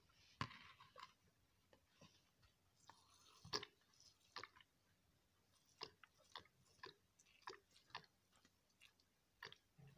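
Faint, irregular clicks and light crackles of damp wood chips in a metal pot as perfume oil is poured over them from a plastic bottle, with brief soft hissing of the pour near the start and again about three seconds in.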